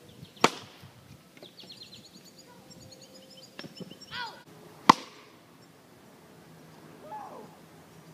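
A plastic wiffle ball bat cracking against the ball about half a second in, then a second, louder sharp knock near five seconds. Thin high chirps are heard between them.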